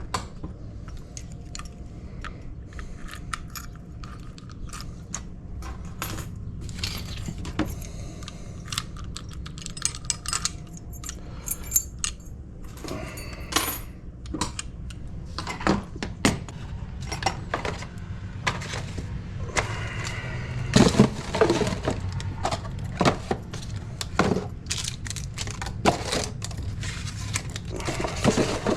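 Small metal lock parts and tools being handled: a run of irregular clicks and clinks, busier in the second half.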